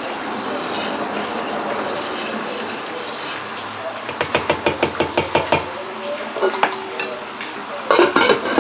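Metal ladle stirring hot ginger infusion in a stainless steel pot, then knocking rapidly against the pot about a dozen times. Near the end the steel lid clatters as it is set on the pot.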